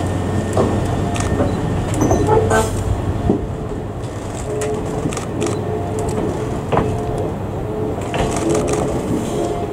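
115-series train cars rolling slowly during shunting, with wheels knocking and clicking over the track, short squeals, and a steady low hum underneath.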